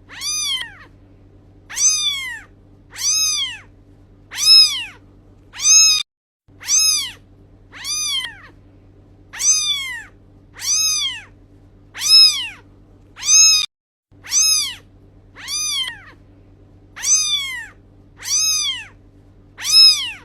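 A domestic cat meowing over and over at a steady pace, about one meow every second and a half, each meow alike, rising and then falling in pitch. A faint steady hum lies beneath.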